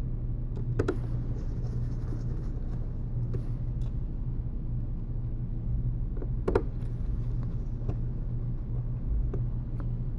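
A steady low hum with a few short clicks, the clearest about a second in and again near six and a half seconds, as small screws are driven back into a smartphone's back frame with a Phillips screwdriver.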